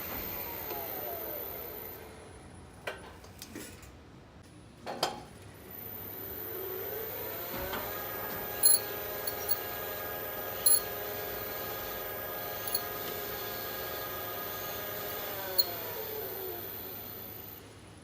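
Elevator drive running through a trip: a whine of several pitches rises over a couple of seconds, holds steady with a few sharp clicks, and falls away near the end as the car slows. Before it starts there are a few knocks, and another whine falls away in the first seconds. The lift's brake is noisy, mostly at the start of an upward move.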